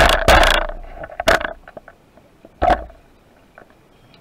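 Underwater handling noise from a spearfishing diver moving along a rock: loud rushing and scraping bursts through the first second and a half and a short one near three seconds, then faint ticking in the water.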